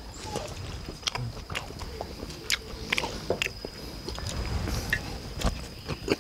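Chopsticks clicking against ceramic bowls, with chewing, as people eat a meal: scattered sharp little clicks and knocks. A faint steady high-pitched tone sits behind them.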